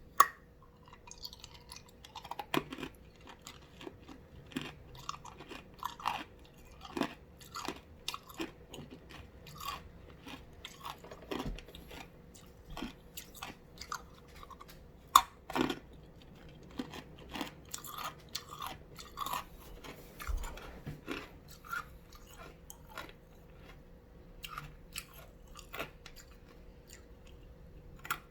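Ice being bitten and chewed close to the microphone: a run of irregular sharp crunches and crackles, with two louder cracks, one just after the start and one about halfway through.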